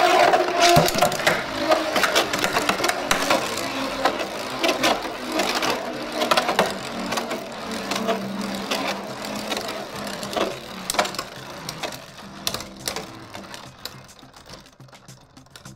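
Two Beyblade spinning tops, one a custom full stainless-steel Meteo L-Drago, whirring and grinding on a clear plastic stadium, with repeated sharp clacks as they collide. The sound is loudest at first and fades as the tops lose speed.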